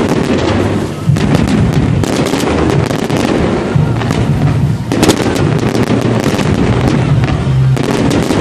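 Fireworks display: continuous rapid bangs and crackling. Clusters of sharper reports come about a second in, around five seconds in, and near the end.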